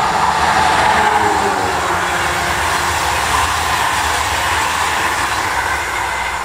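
Passenger train hauled by an electric locomotive passing close by, a steady rolling rumble of wheels on rail that is loudest about a second in, as the locomotive and first coaches go past, then slowly fades as the coaches run by and the last one clears.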